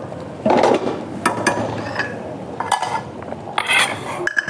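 Metal utensils and dishes clinking and knocking: a series of separate clinks at irregular intervals, with a short scraping burst about half a second in.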